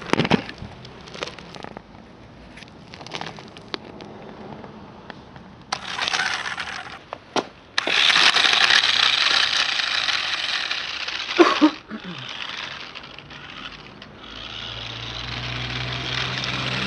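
Cheap battery-powered toy RC off-road truck running on concrete: clicks and rattles at first, then from about eight seconds in a loud, steady whir of its small electric motor and plastic gears with tyre noise, dipping at moments and with one falling tone in the middle. A low steady hum joins near the end.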